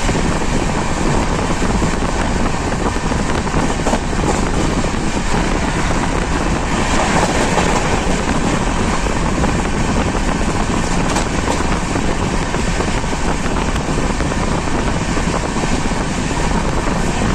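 Steady running noise of the Bhopal weekly express passenger train on the move, with wind buffeting the microphone.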